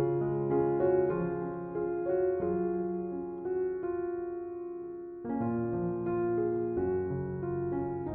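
Slow, soft relaxation piano music: held chords struck and left to ring. The sound fades away for a moment, and a new chord comes in about five seconds in.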